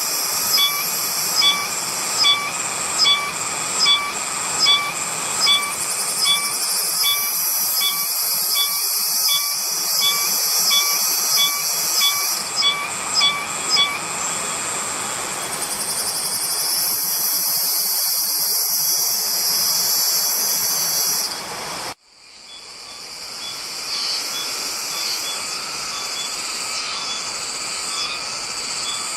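Cicadas calling: a continuous high-pitched buzzing, with a repeated pulsing call a little faster than once a second through the first half. About two-thirds of the way through the sound cuts out abruptly and returns as a steadier buzz with only faint pulses.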